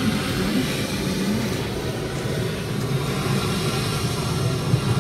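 Steady roar of surf and wind from an exhibit film's soundtrack of waves breaking on rocks, played over the gallery's speakers.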